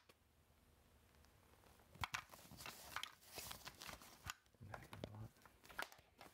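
Near silence for about two seconds, then a padded camera bag and the gear in it being handled: fabric rustling with scattered small clicks and knocks.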